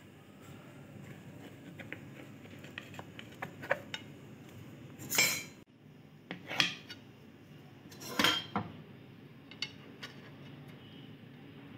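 Large kitchen knife cutting through a pizza and scraping and clicking against the metal pan beneath it, with a few louder, sharp scrapes in the second half.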